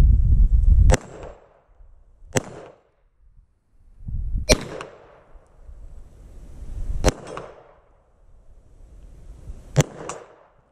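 Five 9mm pistol shots from a Glock 34 Gen 3, spaced one to three seconds apart, each followed by a brief ring of a struck steel plate.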